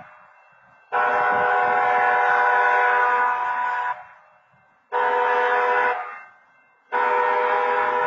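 Railroad crossing wayside horn sounding the crossing signal: a long blast, a short one and another long one, each a steady multi-tone chord that stops abruptly. It sounds in a false (phantom) activation, with no train at the crossing.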